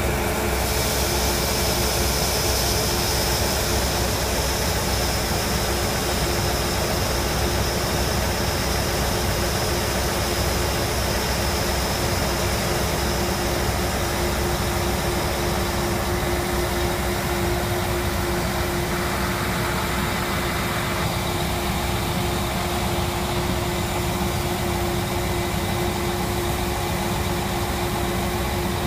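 Heavy farm machinery engine running steadily during wheat harvest, with a constant hum and a steady mid-pitched whine; a high whine fades out about halfway through.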